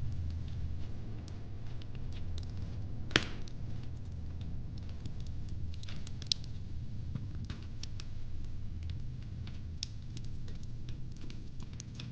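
Wood fire in a fire pit crackling: irregular sharp pops and snaps over a low steady rumble, with one louder pop about three seconds in.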